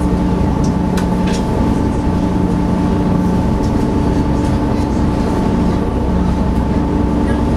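SeaBus passenger ferry's engines and machinery droning steadily, a low rumble with a constant hum, with a couple of faint clicks about a second in.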